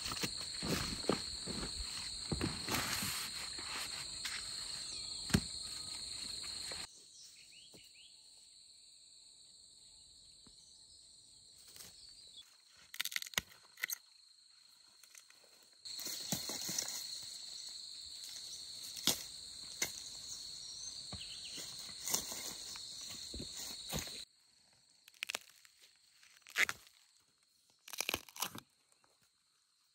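Rural outdoor ambience: a steady high insect drone with scattered short crunches and knocks. The insect background drops away abruptly about a quarter of the way in, returns around the middle, and drops out again near the end, leaving only isolated clicks.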